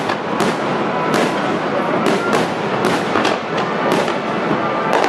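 Aerial fireworks shells bursting in a rapid series of sharp bangs, about two a second, over a steady background din.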